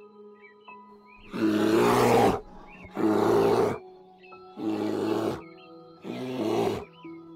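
Young brown bears growling loudly as they play-fight: four rough growls, each under a second, about a second apart, beginning about a second in. Soft background music runs underneath.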